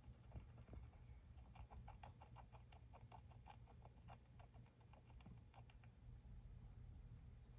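Faint rapid clicking of a hamster's teeth grinding, about six clicks a second, starting a second and a half in and stopping about two seconds before the end, over a low steady hum.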